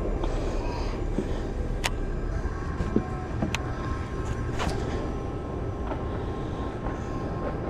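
A small boat's motor running steadily with a low rumble, with a few sharp clicks about two, three and a half, and four and a half seconds in.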